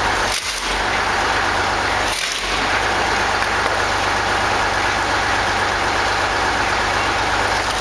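Wood-cutting machinery working through wood: a steady, loud mechanical noise with wood being cut or crushed, briefly dipping about half a second and two seconds in.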